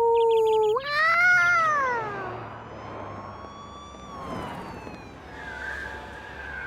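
A cat's long drawn-out meow: it holds one pitch for nearly a second, then rises and slides down. Quick bird chirps sound at the start, and fainter long sliding tones follow in the second half.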